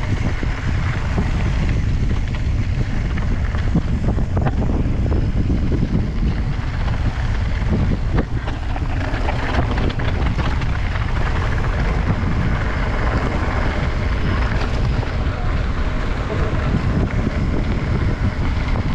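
Wind rushing steadily over the microphone of a mountain biker riding downhill on a gravel singletrack, with the tyres crunching over loose stones and the bike rattling.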